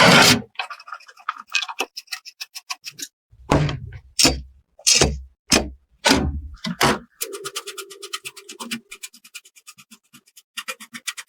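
Computer parts being handled during a PC build: a string of sharp plastic and metal clicks and knocks, some with a dull thud, then a fast even run of small ticks for a few seconds in the second half.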